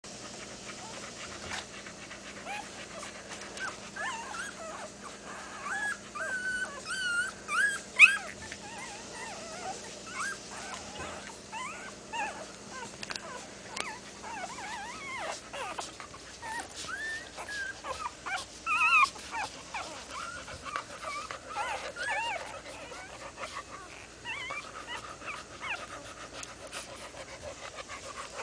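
Newborn boxer puppies squeaking and whimpering as they nurse, many short high squeals overlapping one another. The cries are loudest about eight seconds in and again near nineteen seconds.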